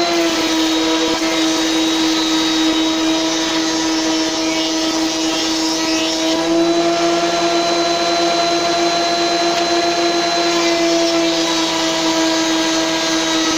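Benchtop thickness planer running with a steady, loud motor whine while boards for a beech front frame are fed through; its pitch dips slightly just after the start and again near the end, as the cutter block takes a board.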